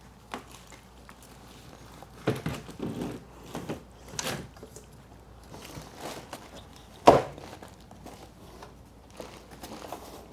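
Window frame parts being handled and fitted together: scattered knocks and clicks with short rustling handling noise, the sharpest click about seven seconds in.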